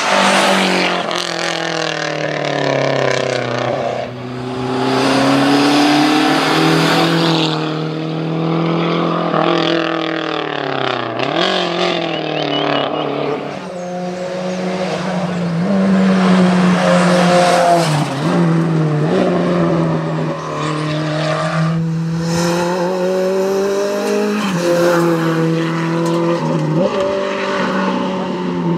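Rally car engines at full throttle, revving up and dropping again and again through gear changes and lifts for the bends as the cars pass one after another. The loudest moment is at the very start, as a turbocharged four-cylinder Lancia Delta HF Integrale goes by close.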